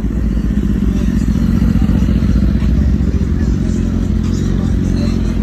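Sport motorcycle engine running steadily with a low, rapidly pulsing sound.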